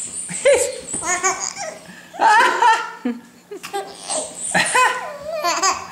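Baby laughing in several high-pitched bursts in response to a game of peek-a-boo.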